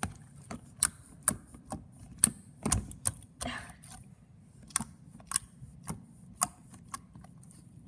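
Jiggly water-based slime being squeezed and stretched by hand for ASMR, making sharp, irregular clicks and pops, about two a second.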